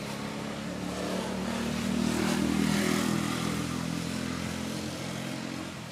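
A motor vehicle passing by: a steady engine hum that grows louder to a peak about halfway through, then fades away.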